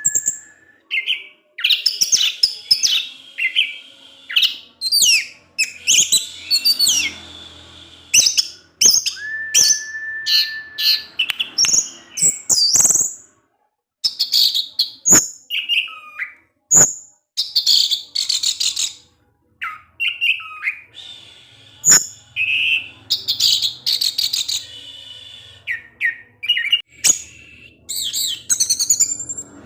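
Orange-headed thrush singing a long, varied song of rapid high chirps and trills mixed with whistled notes, including one held whistle and a few swooping notes, with short breaks between phrases.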